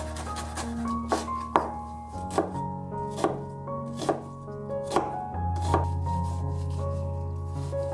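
Chef's knife chopping on a wooden cutting board: quick light chopping through herbs at first, then sharp single knocks of the blade on the board about once a second as it cuts through an onion. Background music plays underneath.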